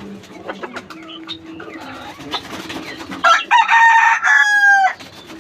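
A rooster crows once, loud, starting about three seconds in, the call ending on a falling tail. Pigeons coo softly around it.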